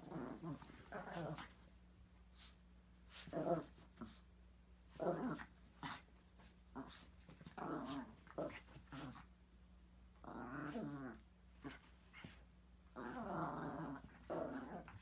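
Two small dogs play-fighting, growling in repeated short bouts, with longer growls about ten and thirteen seconds in.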